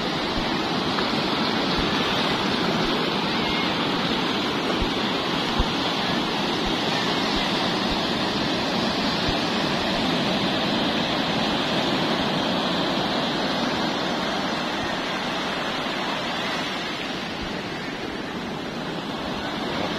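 Ocean surf breaking and washing up the beach, a steady rush of water.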